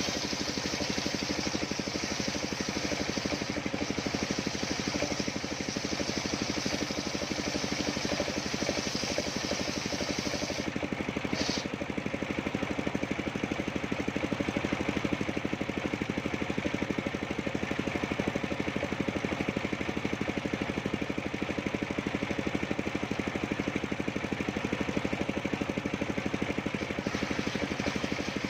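Homemade circular sawmill running steadily with a machine hum. A higher hiss over it stops about ten seconds in.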